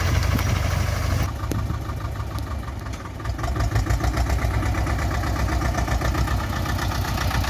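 Tractor diesel engine running steadily while driving a rotary tiller; the sound changes about a second in, and the level dips briefly near the three-second mark.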